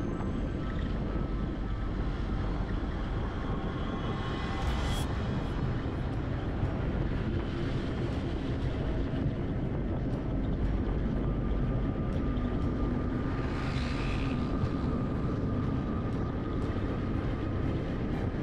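Riding noise from a motor scooter under way: a steady low rumble of wind and engine, with two brief swells of louder hiss, about five seconds in and again near fourteen seconds.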